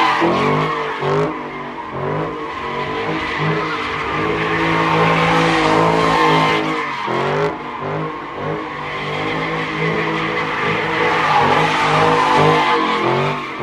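Dodge Scat Pack's 392 Hemi V8 held at high revs while the rear tyres spin and squeal in donuts, the revs dipping briefly a couple of times.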